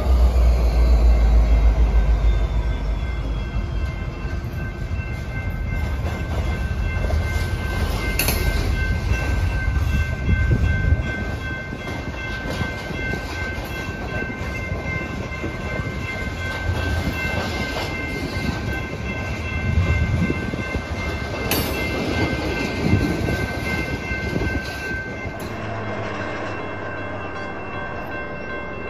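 BNSF freight train headed by GP60 diesel locomotives passing: a loud low diesel rumble in the first few seconds, then the cars rolling by with knocks and clatter and a steady high ringing tone that stops suddenly near the end.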